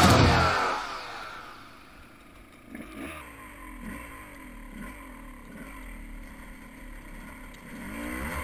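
Dirt bike engine running on a trail, its pitch rising and falling with the throttle about once a second and getting louder near the end. Loud backing music fades out in the first second or so.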